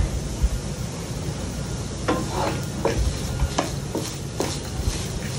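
Wooden spatula stirring and scraping grated coconut and groundnuts around a nonstick pan, with strokes starting about two seconds in, roughly two a second. Under it runs a low sizzle of the coconut frying on a low flame as it roasts off its rawness.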